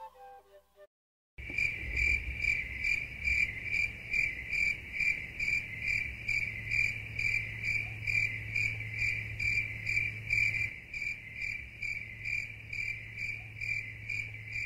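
Crickets chirping in a steady, even rhythm of about three chirps a second over a low hum. They start after the last faint notes of music fade out and a brief silence.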